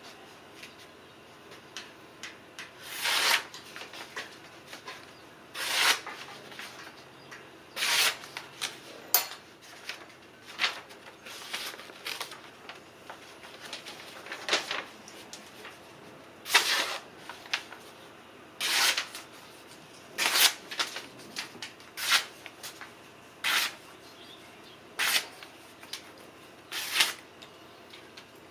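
Short scraping or rubbing strokes, one every one to two seconds at an uneven pace, with quiet between them.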